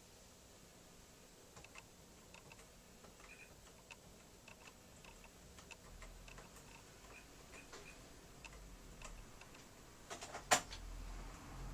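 Light, irregular clicks of keys being pressed on a StarWriter Pro 5000 typewriter's keyboard, about one or two a second, with one much louder sharp clack about ten and a half seconds in.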